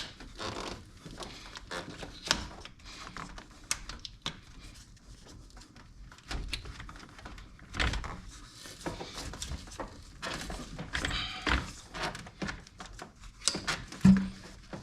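Irregular clicks, knocks and clatter of hand tools and parts being handled during engine-bay work, with a heavier thud about eight seconds in.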